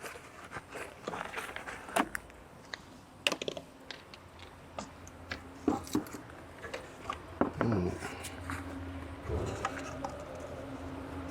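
Light clicks and knocks of things being handled, then about two thirds of the way through the Dodge Durango's engine starts and settles into a steady idle, run after the oil change to circulate the new oil.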